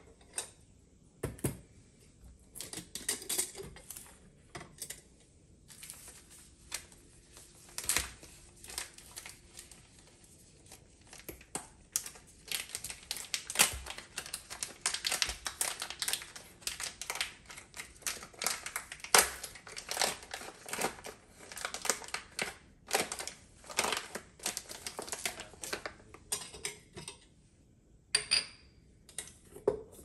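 Clicks and clatter of a stainless steel coffee canister and its lid being opened and handled on a countertop, mixed with the crinkling of a foil coffee bag. The rustling and clicking is busiest through the middle.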